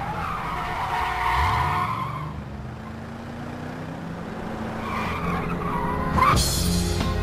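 A stretch limousine's tyres squeal as it takes a corner fast, while its engine revs up. A second, shorter squeal comes about five seconds in, and music with a beat starts near the end.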